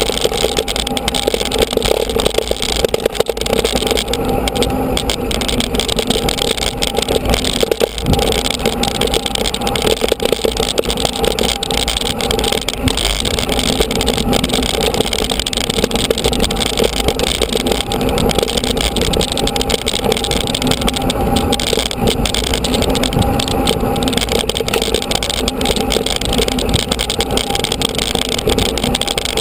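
Steady rush of wind and tyre noise from a mountain bike riding a rough dirt track, with rattling from the bike and camera mount over the bumps, as picked up by an action camera riding along.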